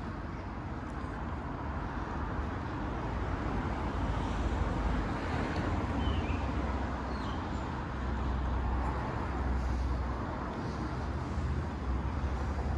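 Road traffic passing along a town high street, a steady rumble of cars with no sudden events.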